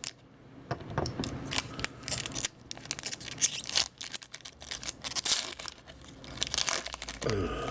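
Wrapper of a hockey card pack being torn open and crinkled: an irregular run of sharp crackles and rips.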